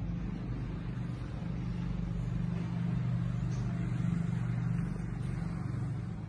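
A motor vehicle's low engine hum swells, peaks about four seconds in, then fades, over a steady hiss of rain.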